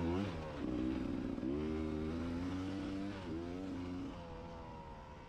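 Enduro motorcycle engine revving, its pitch climbing and dropping several times as the throttle is opened and shut, then dying away near the end.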